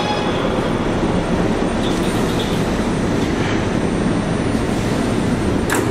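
Kawasaki R211T subway train rolling to a stop at a station platform: a steady rumble of wheels on rail, with a short sharp burst of noise near the end.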